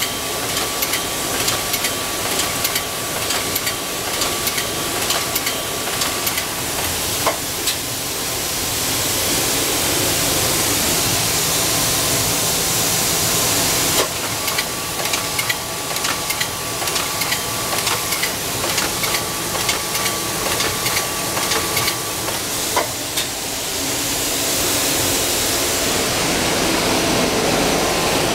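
A cellophane overwrapping machine running at production speed: rapid, continuous clicking and clacking from its wrapping mechanism over a steady hiss, with a thin steady whine in long stretches.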